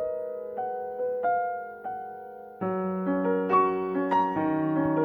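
Slow piano music: a few single notes ringing out, then fuller chords over a low bass from about halfway.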